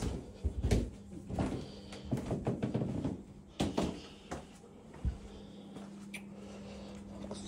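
Footsteps down carpeted stairs and along a hallway, with scattered knocks and thuds. A steady low hum sets in about five seconds in.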